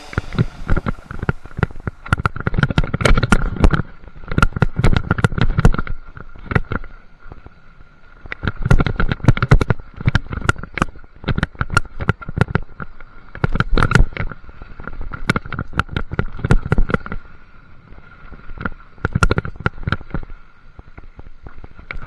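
Enduro mountain bike rattling and clattering over rock: a dense, irregular run of sharp knocks from the tyres, chain and frame hitting the stone, in loud bunches over rough sections, under a steady high hum.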